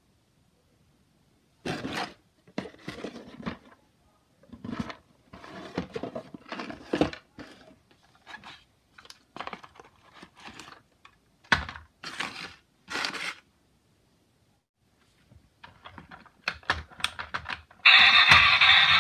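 Irregular handling noises, short clicks, knocks and rustles, as the plastic toy car and its cardboard box are turned over and worked by hand. About a second before the end, the Innovage Bump n' Go toy car's sound chip starts a loud, steady electronic car sound effect through its small built-in speaker.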